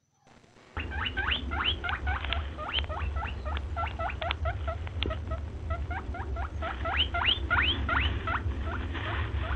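Rapid, high-pitched squeaks, each a quick rising chirp, several a second, over a steady low hum. They start abruptly about a second in.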